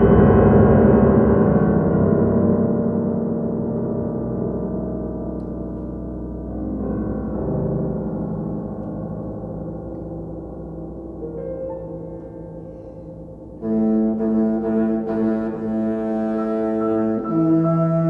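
Contrabassoon and piano playing a slow, dark passage: a low ringing chord fades slowly for about thirteen seconds, then the two instruments come in louder with sustained low notes about fourteen seconds in.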